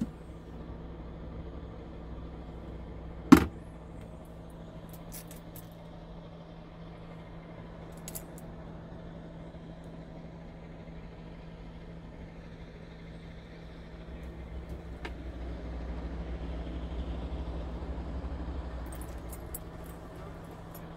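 Steady low hum inside a Scania R truck cab, with one sharp, loud knock about three seconds in as the pull-out fridge drawer is shut, and a few light clicks later on.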